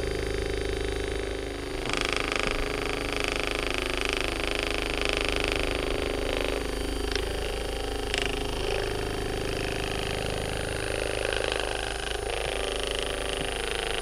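Handheld percussion massage gun running, a steady motor buzz with rapid hammering as its head is pressed into the muscles of the lower back and hip. The buzz turns brighter about two seconds in.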